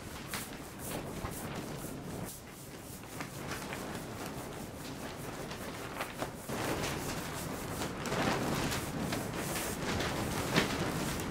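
Hand spreader scraping thickened epoxy across the face of a laminated wooden shaft-log timber in irregular strokes, growing louder and busier in the second half, with a sharp knock near the end.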